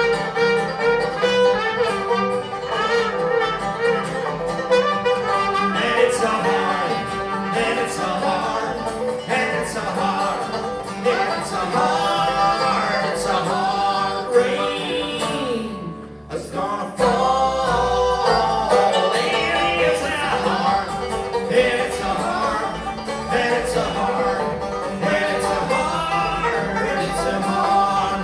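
Live folk band playing an instrumental passage with banjo, acoustic guitars and drums, a trumpet playing near the start. The music drops briefly about halfway through, then picks up again.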